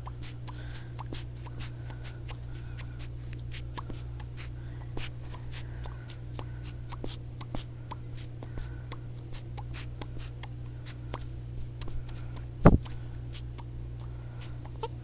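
A short imitation fart noise made by a person, one brief sharp burst near the end, over a steady low hum and faint irregular clicking.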